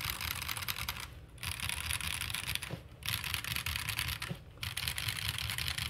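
Fast two-handed typing on a stock, unmodded Feker Alice 80 gasket-mounted mechanical keyboard: a quick, dense clacking of keys in four runs with short pauses between. The sound is a bit thin.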